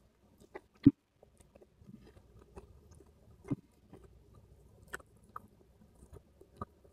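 A person eating a meal of rice and side dishes with a metal spoon: soft chewing, with a few short sharp clicks of the spoon on the plate, the loudest about a second in.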